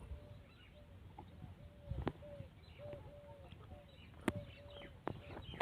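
A bird calling over and over with short, slightly arched notes, about two a second, with a few sharp knocks, the loudest about four seconds in.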